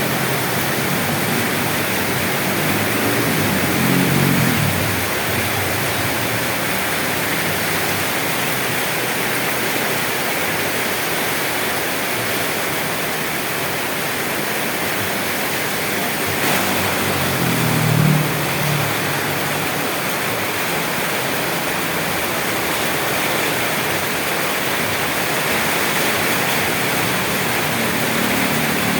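Steady, heavy rainfall, a dense even hiss without letup. A low rumble swells briefly twice, about three seconds in and again around eighteen seconds.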